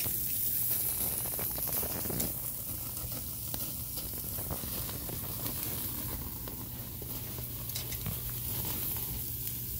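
Picanha steaks sizzling on a grill grate over an almond-wood fire: a steady hiss with scattered sharp pops and crackles.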